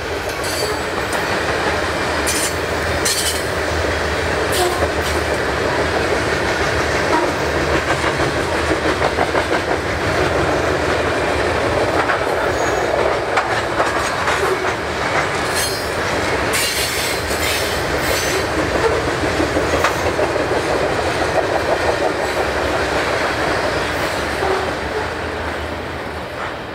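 Canadian Pacific freight train rolling past, its wheels clicking rhythmically over rail joints with occasional sharp clanks from the cars, fading away near the end.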